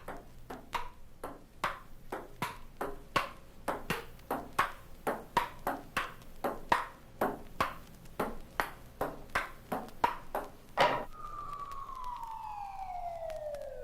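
Table-tennis ball struck back and forth in a steady rally, about two to three sharp clicks a second. About eleven seconds in the rally stops and a siren-like wail begins, falling steadily in pitch.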